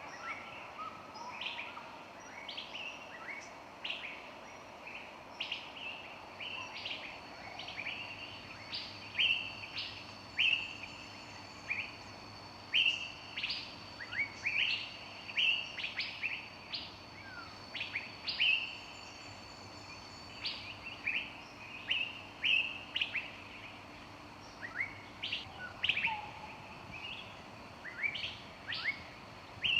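Several small songbirds chirping, with many short, sharp calls and quick falling notes, plus some thin high whistles, over a faint steady background.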